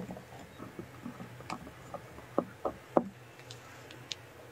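Silicone spatula stirring a thick cream mixture in a glass bowl, with many small irregular knocks against the glass. Three sharper knocks come close together about two and a half seconds in, then a few faint clicks near the end.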